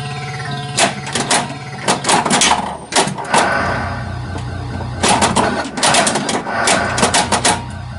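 1982 Bally Vector pinball machine in play: its electronic sound effects with a pulsing low tone, over runs of sharp clacks from the flippers and playfield solenoids.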